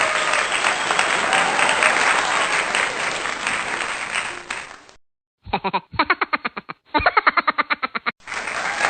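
Applause-like crowd noise for about five seconds that cuts off abruptly; after a brief gap, a rapid run of short, pitched, stuttering pulses, about ten a second, like an edited sound effect; the applause noise comes back near the end.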